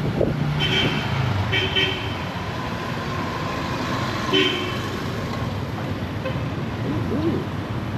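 Street traffic running, with a vehicle horn giving three short beeps: two close together about a second in and one more about four seconds in.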